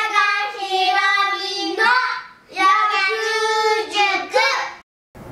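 A child's voice singing a short jingle in two phrases of long held notes, stopping about half a second before the end.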